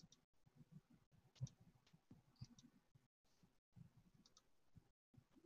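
Near silence, broken by a few faint computer mouse clicks, the clearest about a second and a half in and again just before two and a half seconds.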